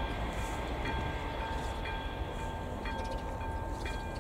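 Level-crossing warning bell (AŽD ZV02 electronic bell) ringing, about one stroke a second over a steady tone, signalling that a train is approaching. A low steady rumble sits underneath.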